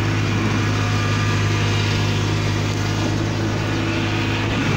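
Kubota DC35 rice combine harvester's diesel engine running at a steady speed, a constant low drone.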